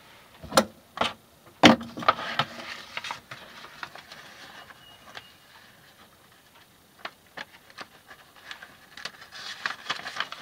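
Handling noises on a workbench: three sharp knocks in the first two seconds, then rustling, then scattered light taps and clicks with more rustling near the end.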